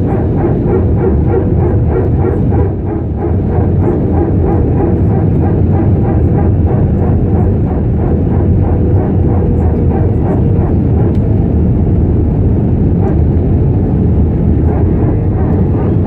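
Airbus A320 cabin noise on approach, heard from a window seat over the wing: a steady rumble of the engines and air rushing past the fuselage, with flaps extended. A steady hum runs through it and fades out about two-thirds of the way through.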